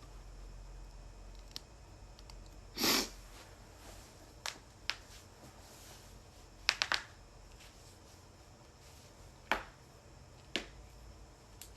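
Joints cracking: a series of sharp pops. A longer, louder crack comes about three seconds in, a quick run of pops falls just before the seventh second, and single pops follow later.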